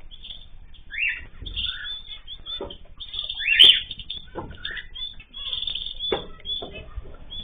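Mixed ornamental cage birds chirping and calling in quick, overlapping short notes, with occasional wing flaps and a sharp click about three and a half seconds in.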